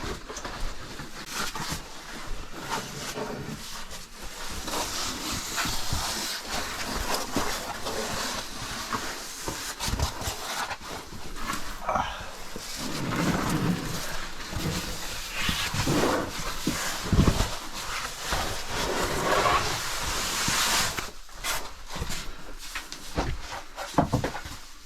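People crawling through a tight rock crawlway in a cave: continual scraping, scuffing and knocking of bodies and gear against rock, with effortful breathing and a few short grunts.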